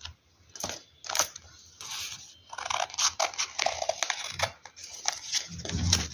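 Scissors snipping through folded paper: a couple of separate cuts, then a quicker run of crisp snips and paper crinkling, with a soft low thump near the end.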